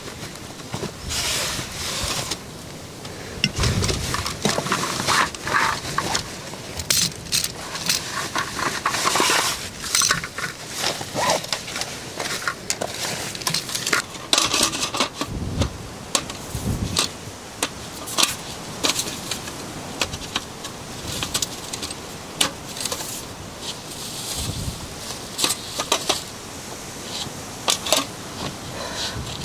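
Folding camp chair being unpacked and set up: its nylon carry bag rustling and its metal frame clicking, knocking and scraping in a long run of irregular handling noises. Near the end, a plastic bag crinkles.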